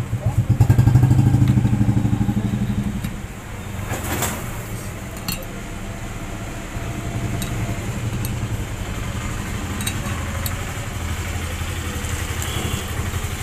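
A small engine runs steadily in the background with a fast, even pulse, loudest in the first three seconds. Steel diamond cutting blades clink lightly a few times as they are fitted together on an angle grinder.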